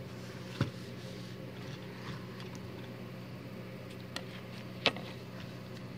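Light knocks of a plastic soda bottle being handled on a wooden table as a crocheted cozy is fitted over it. There are two sharp knocks, a small one about half a second in and a louder one near five seconds in, over a steady low hum.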